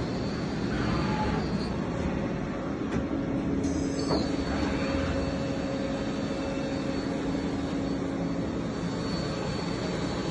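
Steady mechanical hum and rumble of running machine-shop machinery, with a constant low tone and a short knock about four seconds in.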